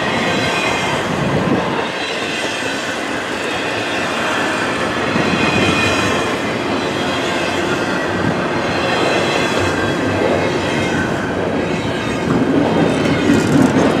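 Double-stack intermodal well cars rolling past at close range: a steady rumble and clatter of steel wheels on the rail, with a thin high squeal from the wheels over the top. It grows louder near the end.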